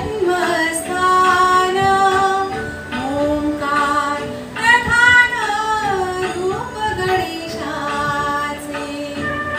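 A woman singing a Marathi devotional song (bhakti geet) to Ganesha, with held notes that bend and glide in pitch.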